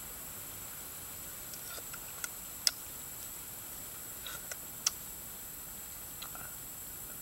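A spoon clicking against a small bowl as soup is eaten: a few short, sharp clicks, the loudest about two and a half seconds in and just before five seconds, over a steady high-pitched hiss.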